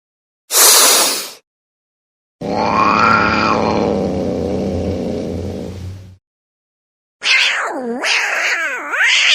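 Three short sounds with silent gaps between them: a brief hiss-like burst, a longer low pitched sound, then near the end a kitten meowing loudly with its pitch swooping down and back up twice.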